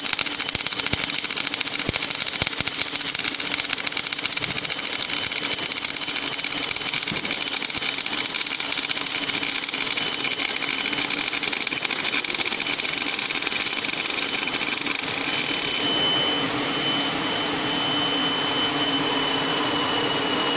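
Automatic MIG welding machine's arc crackling steadily as the torch welds a nipple onto the pipe. About three-quarters of the way through, the arc cuts off sharply, leaving a steady high whine and the hum of the machine running.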